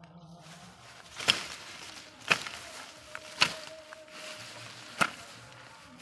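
Four sharp chopping strikes about a second apart, a hand tool hacking into plants and soil.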